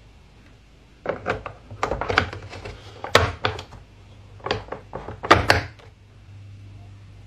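Hard plastic toy track pieces clacking and knocking against each other and against a plastic playset as they are handled and fitted into place: irregular sharp clicks and knocks starting about a second in, the loudest near the end.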